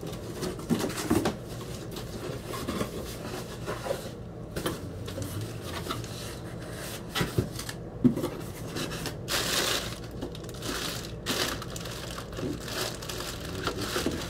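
Cardboard shipping box being opened and the plastic packing inside handled, rustling in irregular bursts, with a sharp knock about eight seconds in.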